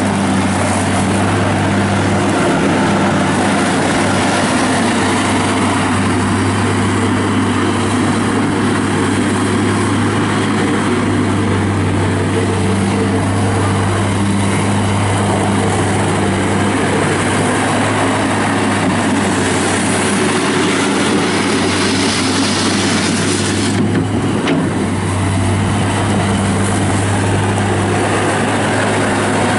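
Yanmar four-cylinder diesel engine of a Mustang 2054 skid steer loader running steadily.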